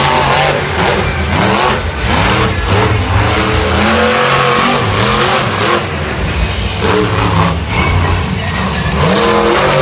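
Monster truck's supercharged V8 engine revving, its pitch rising and falling repeatedly as the truck drives and jumps around the dirt course, heard from the stadium stands.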